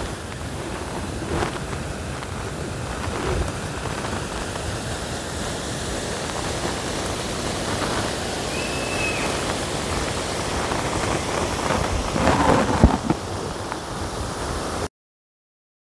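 Wind buffeting an open-air microphone: a steady rushing noise with deep rumble, broken by one short high chirp about halfway through and a few thumps near the end, then the sound cuts off suddenly.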